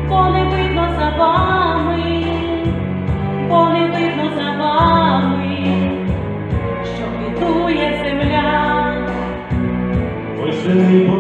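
A song: a singing voice carries a melody over held low chords that change every second or two.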